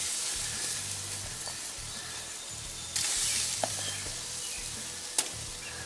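Raw rib-eye steaks sizzling as they are laid on hot grill grates: a hiss that starts suddenly as the first steak goes down and swells again about three seconds in as the next one lands. A sharp click sounds near the end.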